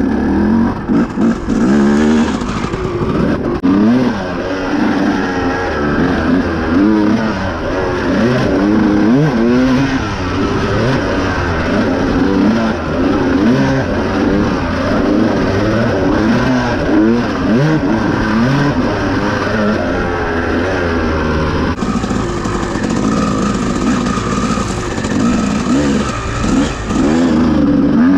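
Dirt bike engine being ridden hard, revving up and down over and over, its pitch rising and falling every second or so.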